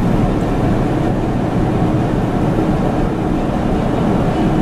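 Steady road and engine noise inside a moving vehicle's cabin, driving along a highway.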